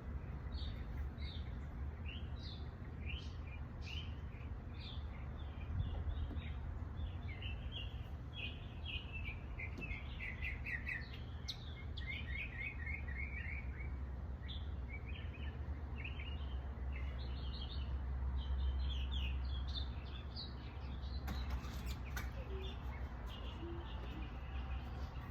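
Small birds chirping and twittering, many short calls throughout, with a quick run of repeated notes about halfway through, over a steady low rumble. A few faint clicks near the end.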